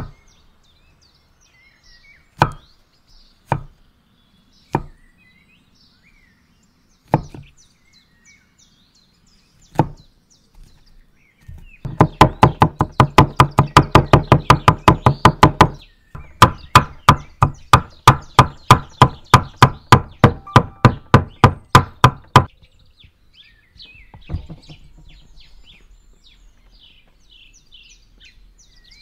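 Cleaver chopping garlic cloves and dill on a wooden board. A few single strokes come first, then two long runs of rapid chopping at about six strokes a second, through the middle.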